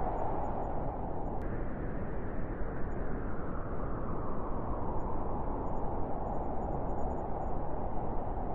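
Strong, steady wind blowing, a deep rushing noise without gusts or pauses. Its tone changes slightly about a second and a half in.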